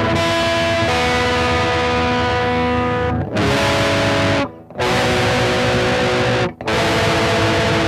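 Distorted electric guitar through an effects unit, ringing out sustained chords that change about three seconds in and are cut off briefly twice, in the middle and about two-thirds through, before the next chord.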